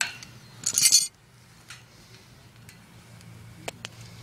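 Small metal mounting hardware of a condenser fan motor clinking against the motor and its wire grille as it is handled: a short scraping rustle just before a second in, a few faint ticks, then two sharp ringing clinks near the end.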